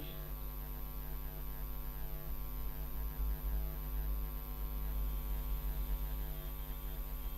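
Steady electrical mains hum with a ladder of buzzing overtones, running unchanged underneath the recording.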